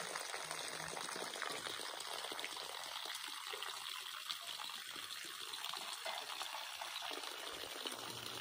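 Water running steadily from a garden hose onto the ground.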